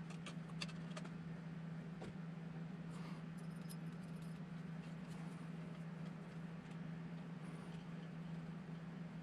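Faint, scattered small clicks and ticks of tiny screws being worked into a miniature RC crawler's plastic axle housing by hand, over a steady low hum.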